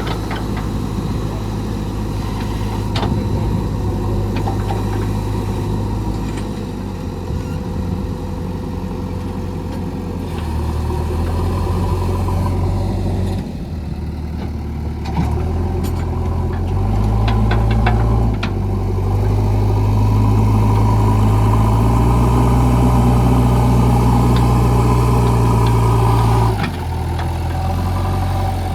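Diesel engine of a JCB 3DX backhoe loader running, revving up louder about halfway through, holding there for several seconds, then dropping back near the end. A few sharp clicks and knocks sound over it.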